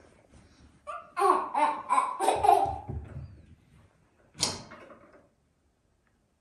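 A burst of laughter, a run of short ha-ha pulses lasting about two seconds, starting about a second in. A single sharp sound follows near the middle, then it goes quiet.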